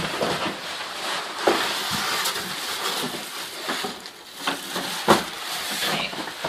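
Cardboard box and packing rustling and scraping as the vacuum canister is worked out of its tipped-over shipping box. Several knocks come through, with the loudest right at the start and about five seconds in.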